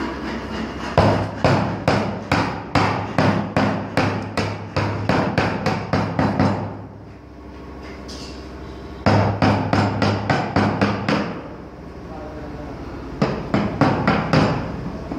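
Hammer striking a wood chisel being driven into a block of wood, in quick runs of about three to four blows a second. The blows stop twice for a couple of seconds before starting again.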